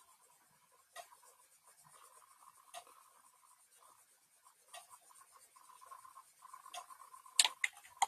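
Faint scratching of a pen stylus dragged across a drawing tablet in painting strokes, with sharp taps every second or two and a louder cluster of taps near the end.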